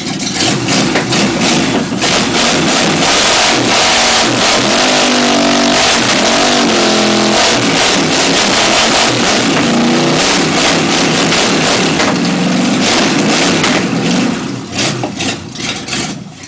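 Chevy 327 small-block V8 with a lumpy cam running loud and being revved, its pitch rising and falling several times. The sound drops off and turns choppy near the end.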